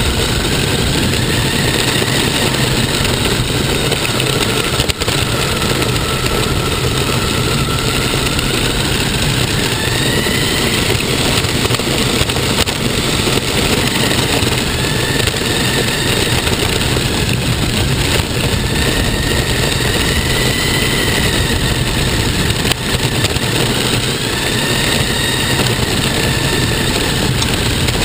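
Radio-controlled car's motor and drivetrain, picked up by a camera mounted on the car: a whine that rises and falls in pitch several times as the car speeds up and slows, over a steady noisy rush.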